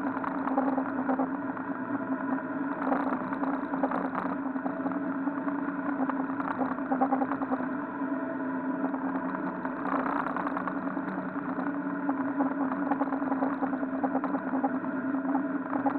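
MerCruiser 140 hp 3.0-litre inline four-cylinder sterndrive engine running steadily under way, with the wash of the propeller wake churning behind the boat.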